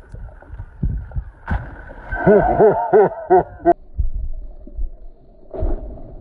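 Gusts of wind buffet a phone's microphone over open water. About two seconds in, a man's voice lets out four quick rising-and-falling calls, the loudest sound here. A short splash-like crack comes just before the end.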